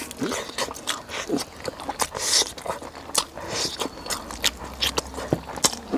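Close-miked eating: biting and chewing soft braised donkey hoof meat, with many short smacking clicks of lips and mouth.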